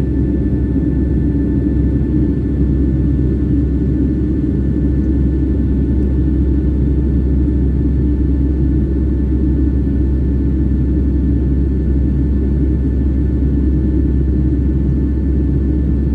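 Steady cabin noise of an airliner in flight: a constant low rumble of engines and rushing air, with a few faint steady whine tones above it.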